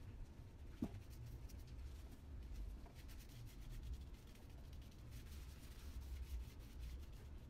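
Faint scratchy rubbing of a tint brush and gloved fingers working hair toner through short hair, over a low hum, with one brief click about a second in.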